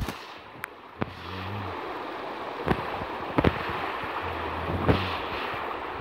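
Shallow stream rushing over rocks, a steady wash of water noise, with a few short sharp knocks about a second apart at the start and again around the middle.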